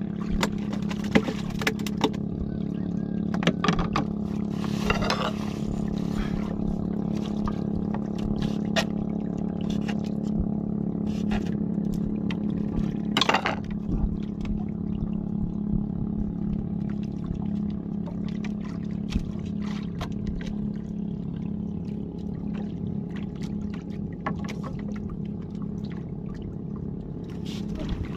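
Steady hum of a boat engine running, with scattered sharp knocks and clatter, and one louder rushing burst about halfway through.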